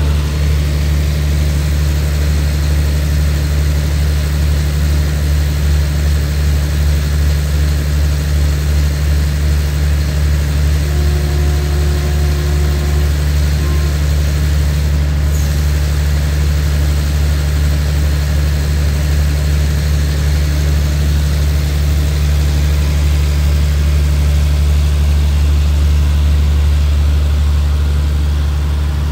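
Diesel engine of a stationary passenger train idling, a steady low hum that does not change through the stop.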